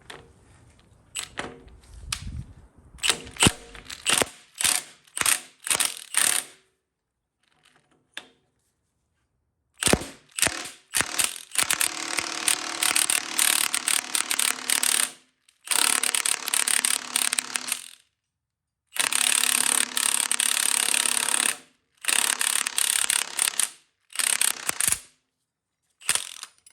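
A power impact wrench drives the forcing screw of a crankshaft hub puller in several short bursts of rattling hammering, each one to three seconds long, pulling the hub off an LT1 V8's crank snout. Before the bursts there is a quick series of separate clicks as the tool is set on the screw.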